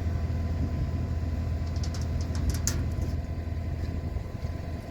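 Engine of a farm vehicle idling steadily, with a few light clicks and one sharper knock about halfway through.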